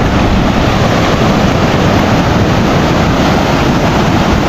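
Ocean surf breaking and washing up the beach, a loud steady rush, with wind on the microphone.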